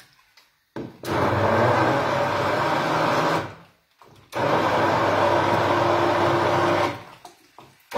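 Electric blender puréeing artichokes into a cream, running steadily for about two and a half seconds, stopping briefly, then running again for about as long, and starting up once more at the very end.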